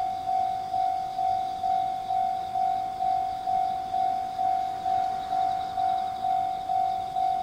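Japanese level-crossing warning bell ringing, a single-pitched electronic ding repeating about twice a second, each stroke fading before the next. It signals that a train is approaching and the crossing is closed.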